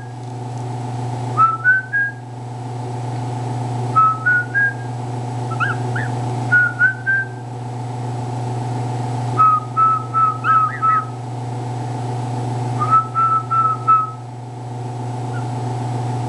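A person whistling softly to chicks in short groups of clear notes, often stepping up in pitch, a new phrase every two to four seconds. A steady hum runs underneath.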